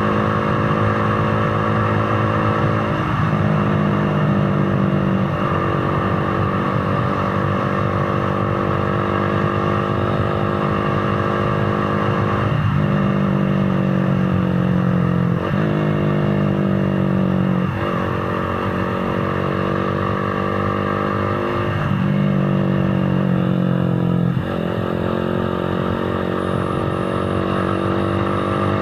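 Motorcycle engine running under way, its note holding fairly steady and dipping briefly about seven times, with the rush of wind and road noise beneath.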